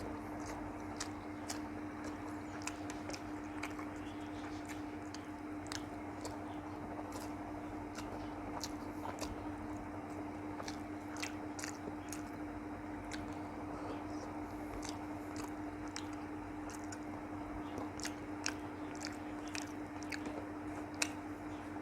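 Close-up mouth sounds of a person eating: chewing with many small wet clicks and lip smacks, over a steady low hum.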